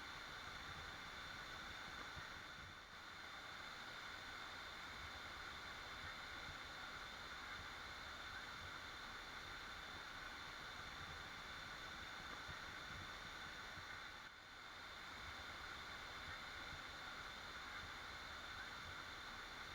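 Waterfall rushing steadily, a constant hiss of falling water that dips briefly twice.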